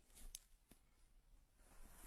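Near silence: room tone, with a few faint clicks in the first second.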